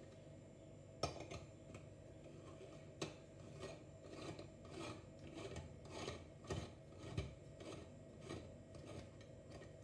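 Top section of a stovetop espresso percolator (moka pot) being screwed onto its base: a sharp click about a second in and another near three seconds, then faint short scraping strokes, metal thread rubbing on metal, repeating about every half second as it is turned.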